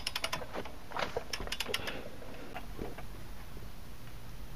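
Light metallic clicks from a torque wrench and socket working a lug nut: a quick run of clicks in the first two seconds, then only faint ones.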